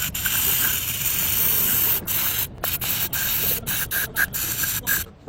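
Pressurised hissing spray from a nozzle, steady for about two seconds and then let off in a series of short spurts.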